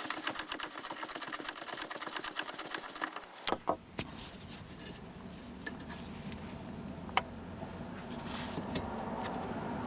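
A ratchet wrench with a 12 mm socket clicking rapidly and evenly, about six clicks a second, as a bracket bolt is unscrewed. It stops about three and a half seconds in with a sharp metallic clink. A few more clinks follow, over a low steady rumble that grows louder near the end.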